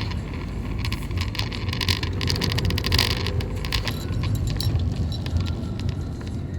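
Car driving, heard from inside the cabin: a steady low engine and road rumble with frequent light rattling and clicking.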